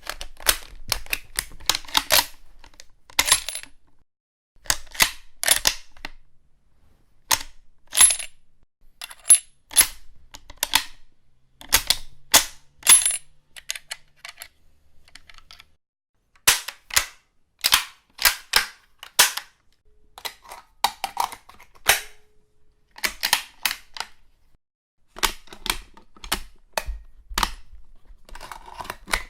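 .303 bolt-action rifle handling foley: a run of sharp metallic clicks and clacks from the bolt and magazine, in irregular groups with short pauses between them.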